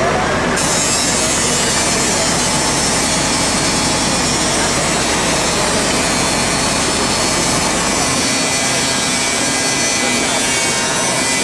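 Abrasive power cutter, such as an angle grinder, running steadily as it cuts through metal, a continuous harsh grinding.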